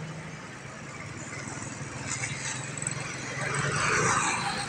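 A small engine idling steadily, with a motorcycle passing close by that swells to the loudest point about four seconds in and then fades.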